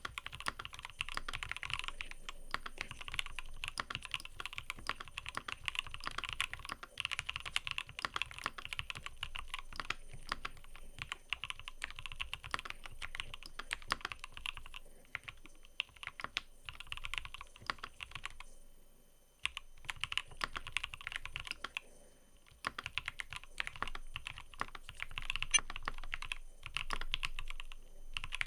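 Continuous fast typing on a mechanical keyboard: a dense run of crisp key clicks and keycap bottom-outs, with a few brief pauses in the second half.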